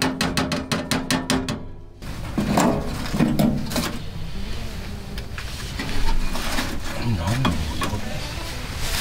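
Background music with a steady beat stops about two seconds in. Then comes the scrape and hiss of ash shaken from a metal can into a wood stove's firebox, and the knocks of short pine firewood blocks being laid on it.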